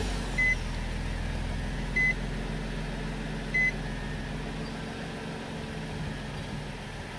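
2005 Nissan Murano's 3.5-litre V6 idling just after a restart that follows an idle air volume relearn, a steady low hum that grows fainter near the end. A short electronic beep sounds three times, about a second and a half apart.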